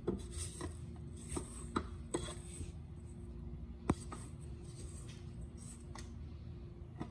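Silicone spatula scraping around the inside of a stainless steel stand-mixer bowl and its flat beater, working a crumbly sugar topping mix. There is a run of scrapes with several sharp knocks of the spatula against the bowl or beater, the sharpest about four seconds in, over a faint steady hum.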